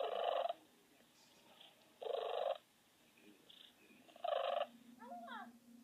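A cat making three short, rasping sounds about two seconds apart, then a few quick chirping calls near the end.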